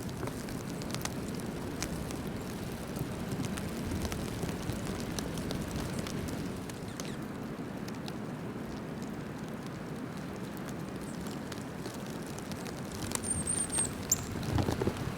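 Steady wind noise of a winter storm, with scattered light ticks. Near the end a small bird gives a brief, high chirp.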